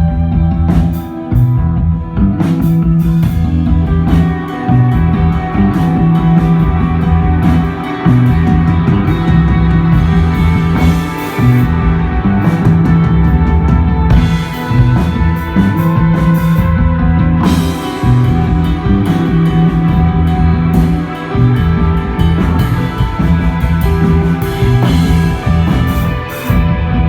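Live desert rock band playing loud and steady: electric guitar, bass guitar and drum kit with crashing cymbals, the bass heavy.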